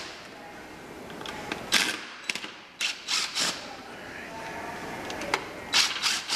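Cordless drill-driver backing screws out of a plastic switch cover in short bursts, with sharp clicks and clatter from the bit, screws and plastic housing between them.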